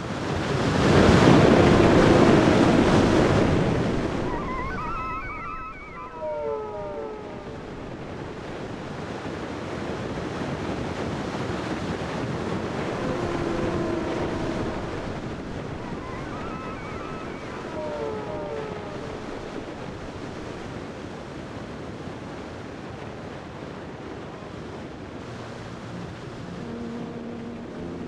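Ocean surf breaking below a coastal bluff, a steady rushing wash with wind, after a loud rushing swell in the first four seconds. Twice, a short run of high falling squeaks cuts through.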